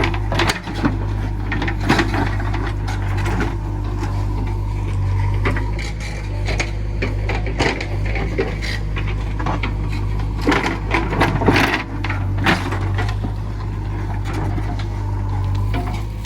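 JCB 3DX backhoe loader's diesel engine running steadily under a low drone, with irregular clanks, knocks and scrapes from the machine at work, thickest about ten to twelve seconds in.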